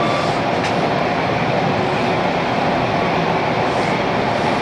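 Bombardier T1 subway car running at speed through a tunnel, heard from inside the car: a steady noise of wheels on rail and running gear, with one sharp click a little under a second in.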